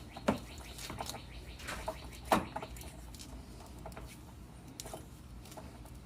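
Black electrical tape being pulled off the roll and wrapped around split loom on a battery cable: scattered small crackles, scratches and clicks, with two sharper knocks, one just after the start and one a little after two seconds in.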